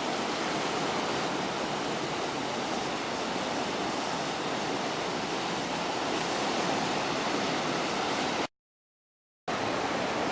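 River in flood rushing steadily, a dense even roar of fast water. The sound cuts out completely for about a second near the end, then resumes.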